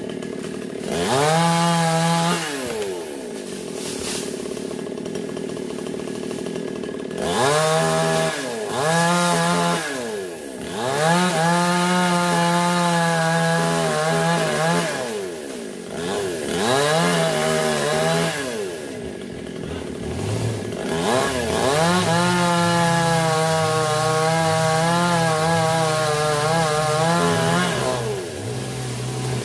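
Two-stroke chainsaw cutting through a sonokeling (Indian rosewood) limb high in the tree. The engine revs up to full throttle and drops back to idle about six times, and the longest cut is held for about six seconds near the end.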